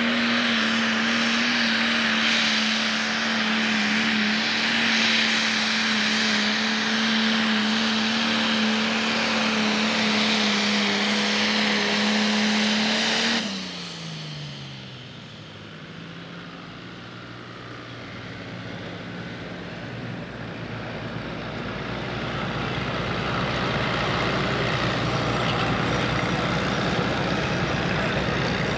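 Pro Stock pulling tractor's diesel engine, in a Case IH 7110 body, held at full throttle pulling the sled: a loud, steady drone. About halfway through the throttle is cut and the engine note falls away as the pull ends, leaving a quieter tractor engine running that builds up again over the last several seconds.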